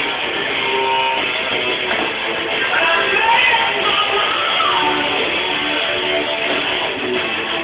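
Music led by strummed electric guitar, playing steadily throughout.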